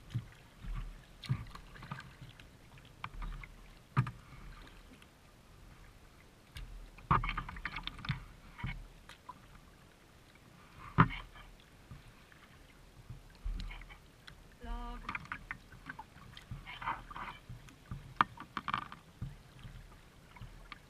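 Paddling a plastic kayak: irregular splashes of the paddle blades in the water and occasional sharp knocks on the hull, picked up close by a camera on the bow.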